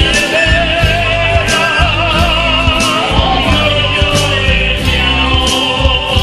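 Rock song with a singing voice over bass and a steady drum beat.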